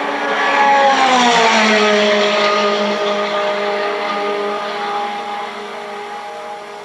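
Recorded race car passing, its engine note dropping sharply in pitch about a second in and then fading, played from a cassette demonstration tape through a 1977 Panasonic RS-466S boombox's speakers.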